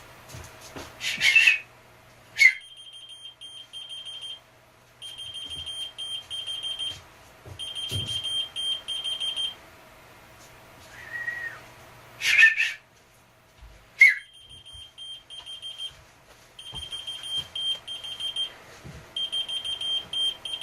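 Two loud whistles, each answered by a whistle-activated key-finder keychain beeping rapidly in three bursts of about two seconds. The second whistle comes near the middle. The keychain responds only to a high-pitched whistle.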